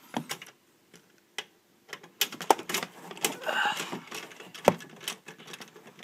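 Irregular clicks and knocks of cable plugs and connectors being handled behind a desktop computer, mostly in the second half.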